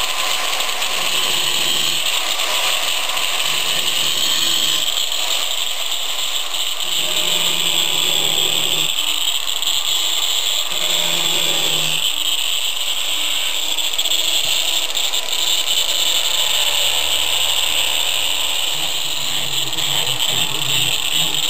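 A power tool running steadily without a break, as used in cutting and carving the stone.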